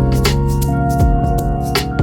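Background music: sustained keyboard and synth chords with light percussion hits keeping a steady beat.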